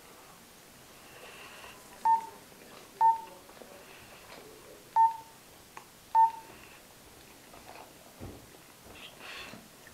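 Mobile phone keypad beeps as a number is dialled: four short beeps of the same pitch, unevenly spaced over about four seconds.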